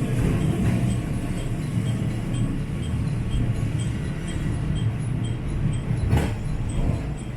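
Diesel railcar running along the line: a steady low rumble of engine and wheels, with one sharper clunk about six seconds in.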